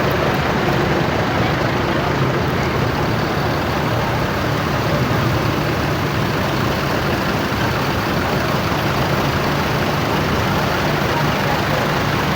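Parked tourist buses' diesel engines idling steadily, with a constant low hum and no horns sounding.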